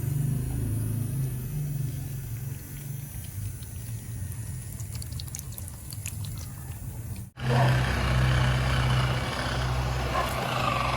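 Small electric motors of homemade plastic RC toy vehicles running steadily with a low hum. Two clips are cut together: about seven seconds in the sound jumps to a louder take with a denser whirring, rattling layer on top.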